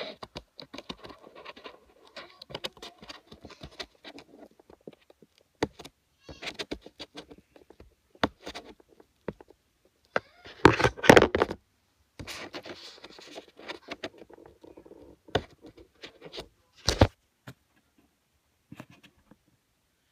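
Close handling noise: irregular rustling, scraping and clicking, with a louder stretch of rustling about eleven seconds in and a sharp knock near seventeen seconds.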